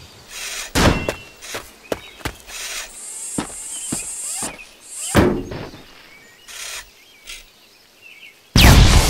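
Cartoon sound effects: a series of separate mechanical clanks and thunks with short bursts of hiss, as the robot moves. Loud music cuts in suddenly near the end.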